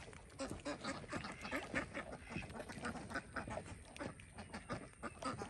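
Domestic ducks quacking, a rapid, overlapping run of short quacks from a flock.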